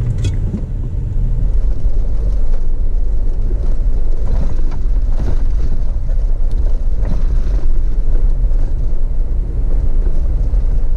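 Jeep Wrangler driving on a gravel road: a steady, loud, low rumble of engine, tyres and wind, with faint scattered ticks of gravel.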